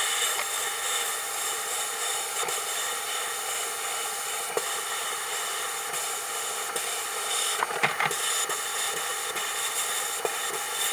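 Sandblast cabinet's blast gun hissing steadily as abrasive strips paint from a metal toy truck part, with scattered sharp ticks and a small cluster of them about eight seconds in.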